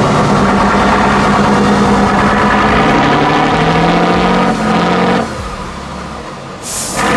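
Off-road vehicle engine running steadily under load. Its sound drops away about five seconds in, and a brief hiss comes near the end.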